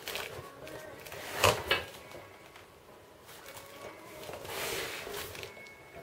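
Large cardboard box holding a motorcycle jack being handled on a wooden workbench: two sharp knocks about a second and a half in, then a longer scraping sound near the end as it is moved on the bench.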